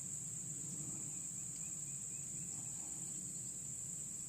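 Steady high-pitched chorus of crickets with a faint low hum beneath.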